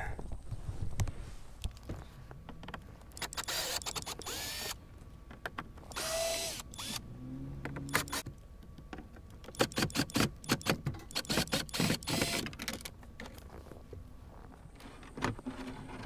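Cordless drill/driver running in short bursts, backing screws out of a boat's console panel, with clicks and rattles from the screws and the panel between runs.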